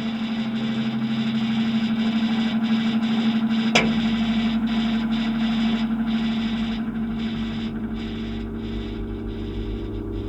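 Household electric motor and fan running with a steady hum and a rush of air. About four seconds in there is a sharp click, after which a deeper hum joins and the air noise slowly dies away.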